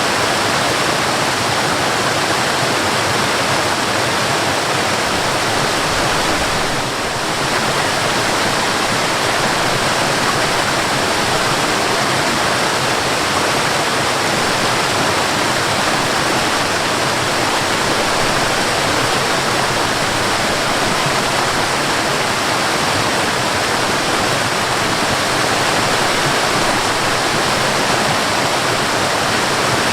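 Waterfall: the steady rushing of falling water, dipping briefly about seven seconds in.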